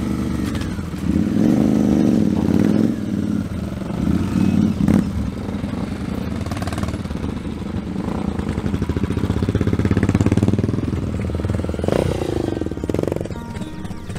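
Motorcycle engines running and revving. The pitch swings up and down about a second in and again near the end, with a louder steady run in the middle.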